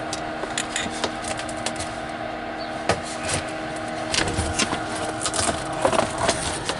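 Steady electrical hum from a 12 V fridge, with light clicks and knocks of it being handled and opened, the knocks coming thicker in the second half; the hum stops about six seconds in.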